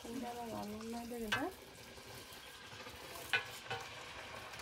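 A knife peeling a mango over a metal pot lid: sharp clicks about a second and a half in and twice more near the end, as the blade knocks the metal, over a steady sizzling hiss. A drawn-out pitched call runs through the first second and a half and rises at its end.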